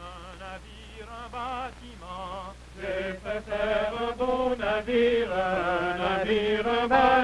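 Singing on the film's soundtrack: slow sung notes with vibrato, faint at first and fuller and louder from about three seconds in.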